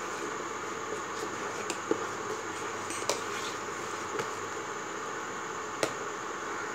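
A ladle stirring simmering milk and rice in a metal pot, clinking sharply against the pot now and then, over a steady fan-like hiss.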